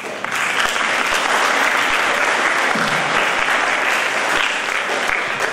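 Audience applauding. The clapping starts suddenly, holds steady and full, then begins to fade near the end.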